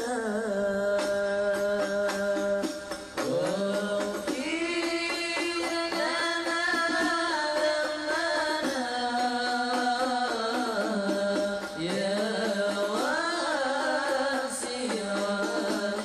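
Background music: an Arabic devotional song, with a voice singing long held notes that bend and waver at their ends.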